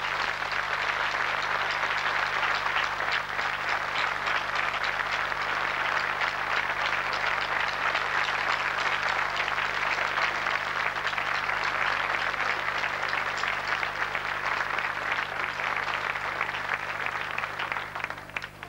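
A large crowd applauding, a long, steady round of clapping that dies away near the end.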